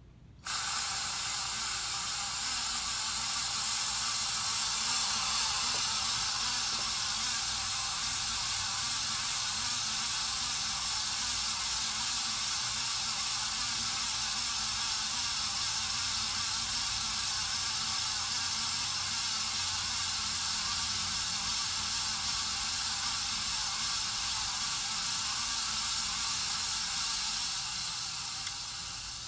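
Casablanca Spirit of Saturn ceiling fan running with bad bearings, giving a steady, hissy grinding noise. It comes in abruptly just after the start and holds level.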